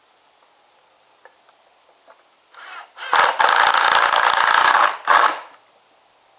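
Impact driver driving a drywall screw into wood: a short blip, then a loud run of about two seconds with rapid clicking, then one brief final burst.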